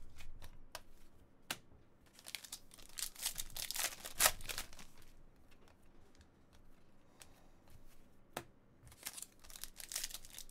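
Foil trading-card pack wrapper crinkling and tearing, loudest about four seconds in and again near the end, with a few sharp clicks of cards being handled.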